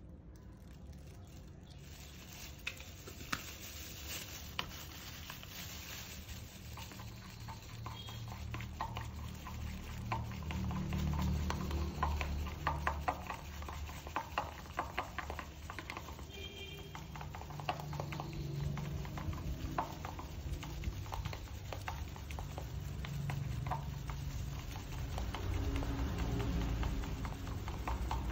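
A toothbrush stirring and scraping dye liquid in a small plastic bowl: many quick clicks and taps against the plastic, over a low background rumble.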